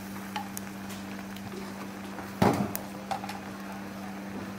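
A loud knock of metal kitchenware, such as a pot or utensil striking a steel saucepan, about halfway through, with a few faint clinks, over a steady low hum.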